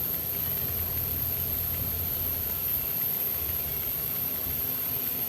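Low mechanical hum of a TRAK VMC10 vertical machining center's X-axis as the table is jogged with the manual hand wheel, easing off about three seconds in, over a steady hiss.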